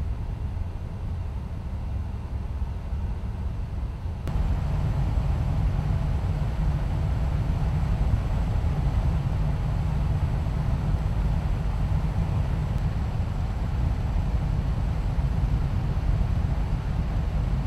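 Bell Boeing V-22 Osprey tiltrotor running: a steady, heavy low rumble of its rotors and engines, which jumps louder about four seconds in.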